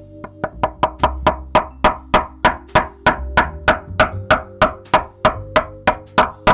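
A mallet driving a chisel to chop a mortise in hardwood: quick, evenly spaced sharp blows, about three a second, over background music.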